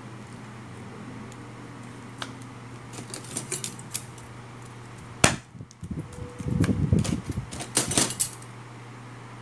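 Thin steel E-I transformer laminations clicking and scraping as they are handled and slid into a transformer bobbin to build up the core. There is a sharp click about five seconds in and a louder patch of clatter and rubbing around seven to eight seconds.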